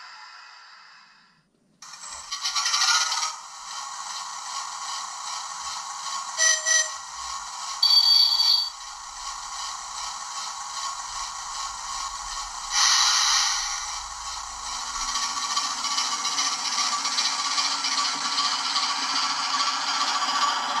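OO gauge model Class 08 diesel shunter and goods wagons running on the track: a steady rattle of small metal wheels on the rails over the loco's motor whir, with a few short metallic clinks. The rattle starts about two seconds in, after a brief gap, and a low hum joins it later on.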